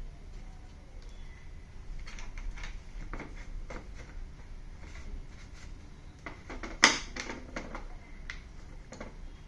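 Scattered clicks and knocks of tools and parts being handled during TV repair work, with one sharp knock about seven seconds in, over a steady low hum.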